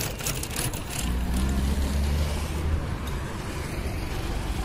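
Road traffic with a motor vehicle's engine running close by. Its low rumble is loudest from about a second in until nearly three seconds.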